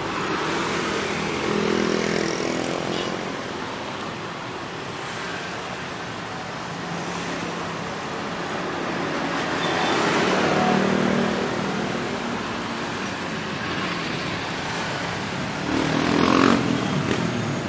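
Busy road traffic running steadily, with engine noise swelling and fading as individual vehicles pass close by, about two seconds in, in the middle, and again near the end.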